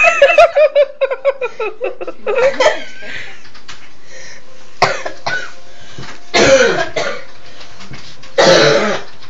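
A person giggling in quick pulses for about a second and a half, then several short coughs, the loudest two near the end, as the laughter is held back.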